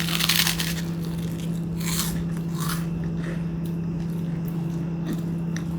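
A person biting and chewing crunchy food close to the microphone: a few crunching bites in the first three seconds, the first the loudest, over a steady low hum.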